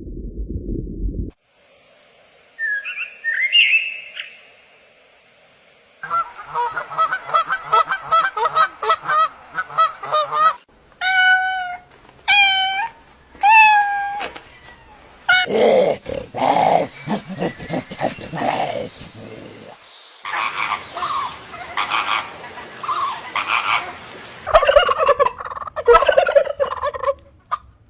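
Domestic fowl calling in a string of short clips: a brief call, then a quick rattling run of calls, then three or four separate pitched calls, then repeated bursts of calling. A low rumbling noise fills the first second.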